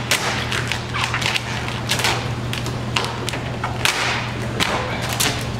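Thick 5-mil Vvivid vinyl wrap film crackling and snapping in irregular bursts as it is lifted off the hood and stretched back over it by hand, over a steady low hum.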